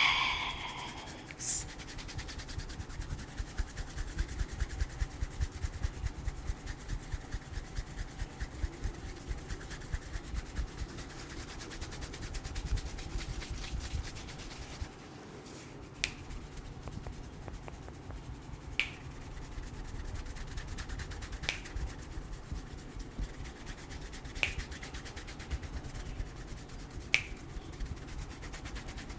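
Hands massaging a person's head, rubbing with a rhythmic patter of about two strokes a second through the first half. In the second half sharp snaps come about every three seconds over quieter rubbing.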